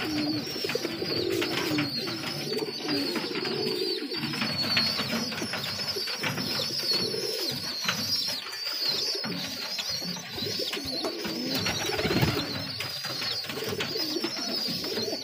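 Domestic pigeons (a Girebaaz breeding pair) cooing repeatedly in wooden nest boxes, with wing flaps and rustling, over a steady thin high chirping.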